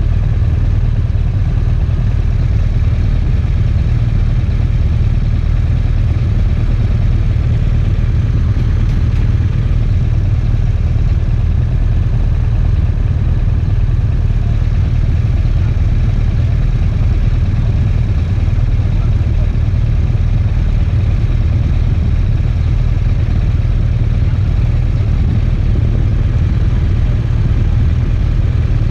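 BMW R1200RT motorcycle's boxer-twin engine running steadily, a constant low hum with no change in speed.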